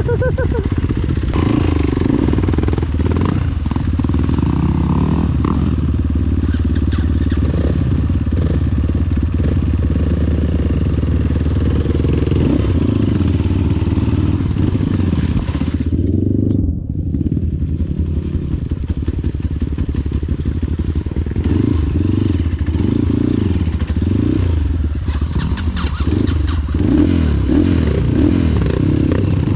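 Trail dirt bike engine running under load, revved up and down again and again in the later part, with rattling and scraping from the bike as it works along a slippery mud track.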